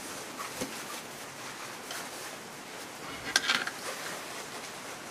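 A pipe wrench clicking and scraping on a metal ball valve as the valve is turned tight onto threaded steel pipe, with a sharper cluster of metal clicks about three and a half seconds in.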